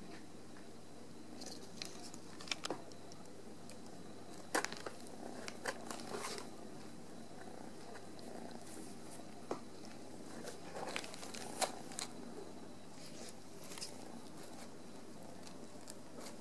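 Two British lilac shorthair kittens grooming each other on plastic bags of beads: soft licking, with scattered crinkles and sharp clicks as the plastic and beads shift under them, loudest about four and a half seconds in and near twelve seconds.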